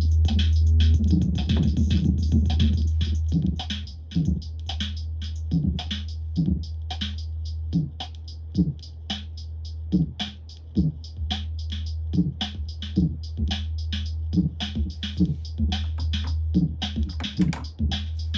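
Electronic beat played live on a Korg Kaoss Pad KP3+ sampler: quick high hi-hat-like ticks over a steady low bass drone, with short downward-swooping stabs about once a second.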